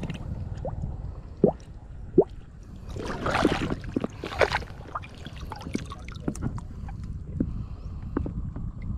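Water splashing and sloshing over a low rumble, with two sharp knocks about one and a half and two seconds in and two louder splashes around three and four and a half seconds in.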